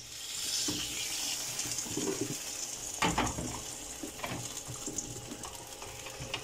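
Chicken quarters frying in their own oil inside a freshly flipped, closed Dessini double-sided grill pan: a steady sizzle that slowly dies down. A soft knock about three seconds in.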